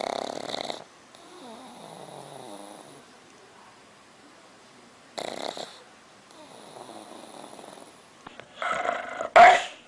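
A dog snoring in its sleep, a rasping snore drawn in about every five seconds with a softer wheezy breath out between. Near the end comes a louder double snort.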